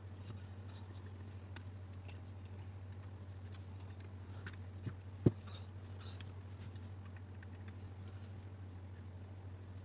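Faint clicks and taps of tools and small metal parts being handled while an angle grinder's gear housing is taken apart, with one sharp knock about five seconds in, over a steady low hum.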